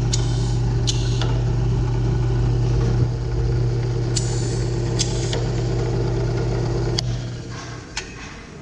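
Single-spindle drill press's electric motor running with a steady hum, with several short clicks and air hisses as the pneumatic feed drives the spindle down and up. About seven seconds in, a click and the hum winds down as the motor is switched off.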